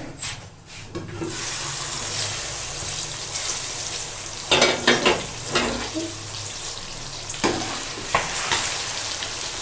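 Masala frying (bhunai) in oil in a pan, sizzling steadily from about a second in, while a spoon stirs it and knocks and scrapes against the pan several times.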